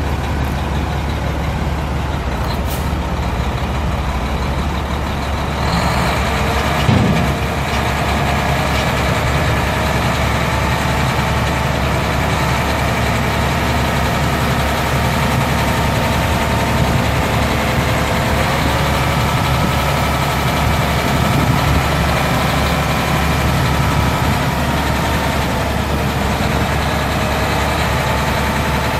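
A Mack EM6-300 11.0-litre inline-six diesel engine in a dump truck, idling steadily with a deep hum, and a brief louder knock about seven seconds in.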